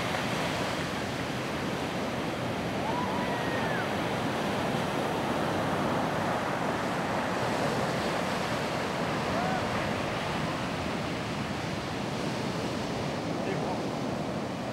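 Ocean surf washing onto the beach in a steady roar of noise, with some wind on the microphone.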